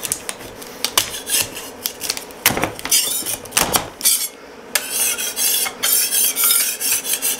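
Metal scraper prying cured resin prints off a 3D printer's metal build plate: sharp clicks and knocks as the prints and supports break free. From a bit over halfway through, it turns to a steady rasping as the blade scrapes the bare plate.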